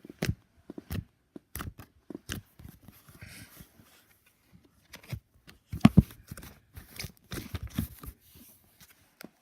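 Hands poking and pressing a butter slime, making irregular sticky squishing and clicking sounds, the loudest cluster about six seconds in.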